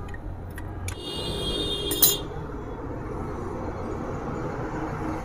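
Metal clinks of a hand tool working the bolts of a motorcycle engine's oil pump during its removal, with a sharp, loud clink about two seconds in, over steady background noise.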